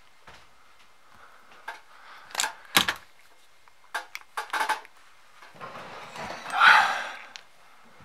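Pliers clicking and scraping against the brass outlet fitting of a fog machine pump as its rubber extension cap is worked off. There is a series of sharp clicks, the loudest about two and a half seconds in, then a longer rasping scrape near the end.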